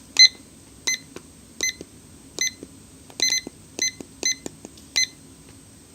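Digital kitchen timer giving a short, high beep with each button press as it is being set: about nine beeps at uneven spacing, with faint button clicks in between.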